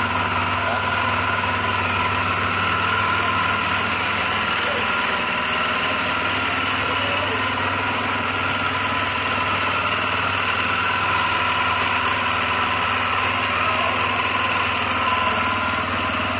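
Honda CB 300R single-cylinder engine idling steadily, freshly rebuilt with a new cylinder head. The throttle is left untouched while the fuel injection relearns its settings after the throttle body and sensors were disconnected.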